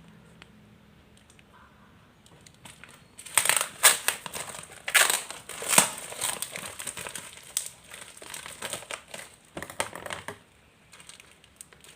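Parcel packaging crinkling and rustling as it is torn open and handled, starting about three seconds in with sharp crackles and easing off near the end.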